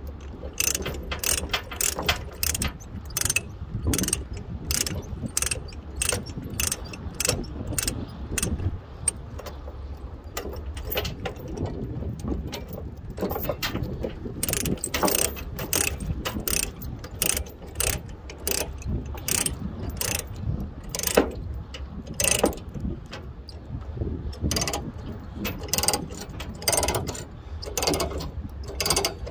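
A ratchet chain binder being cranked to tighten a load-securing chain: repeated sharp ratchet clicks, a few a second, with a short lull about a third of the way through. The binder is taking the slack out of the chain.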